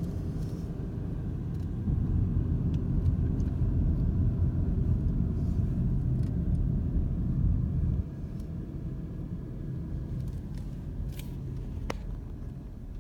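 Low rumble of a car's engine and tyres heard from inside the cabin while driving. It grows louder about two seconds in, drops suddenly about eight seconds in, and fades near the end.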